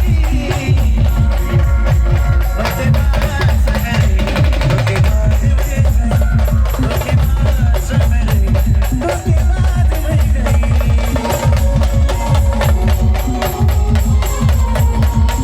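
Live band music played loud: fast, heavy drumming with a melody line carried over it.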